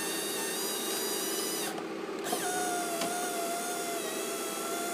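Power window motor and newly fitted regulator in an Audi A3 8P driver's door raising the glass, with a steady whine. It runs in two stretches with a short break about two seconds in. The motor runs smoothly and nice and fast: the new regulator is working freely.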